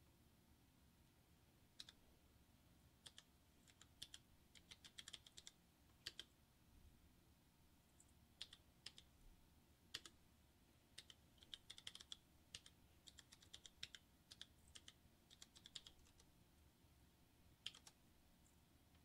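Faint typing on a computer keyboard: irregular runs of keystroke clicks with short pauses in between.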